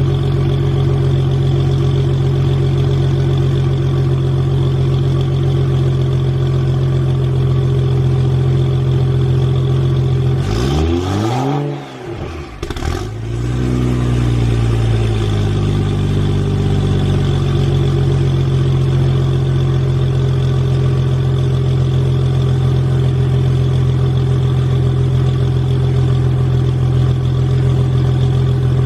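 An engine running at a steady idle. About ten seconds in, its speed drops sharply and it nearly stops. After a short click it picks back up over a few seconds to the same steady idle.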